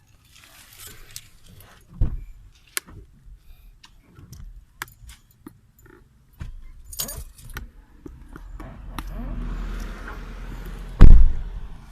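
Scattered clicks and knocks, then a low rumble with a hiss building, and one heavy thump near the end.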